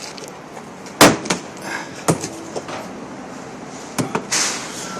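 Hammer blows on a door being knocked out of its frame: one hard strike about a second in, a few lighter knocks, then two quick strikes near the end followed by a short rasping scrape.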